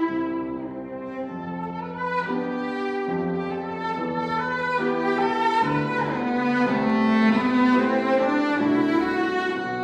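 Cellos playing together in several parts: slow, held bowed notes that change about once a second.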